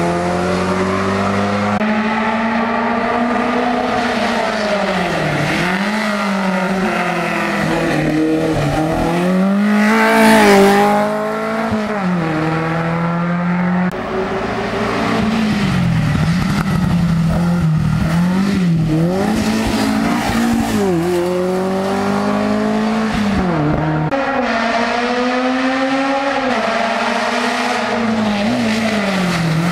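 Hill-climb race car engines under hard acceleration, the engine note rising and falling repeatedly as the cars climb the course. The loudest, highest rise comes about ten seconds in.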